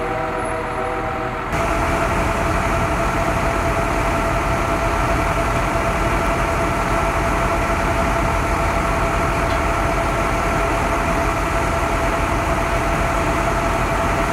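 Fire engine running steadily at the scene: a low engine rumble with a steady whine over it. It gets louder about a second and a half in, then holds even.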